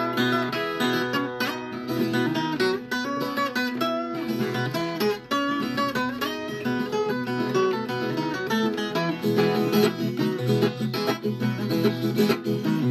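Viola caipira, the Brazilian ten-string folk guitar, playing an instrumental passage of quick plucked notes and strums.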